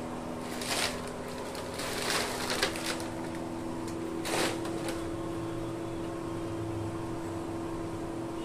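A steady machine hum whose pitch steps up about two and a half seconds in, with a few brief rustles and knocks over it.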